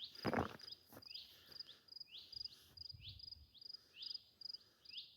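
Crickets chirping: short high chirps repeating steadily about twice a second. A brief louder rustle sounds near the start.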